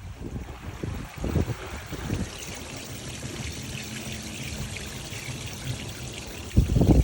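Water pouring and splashing in the tub of an LG TurboDrum direct-drive top-loading washing machine, with a few low thumps, the loudest near the end.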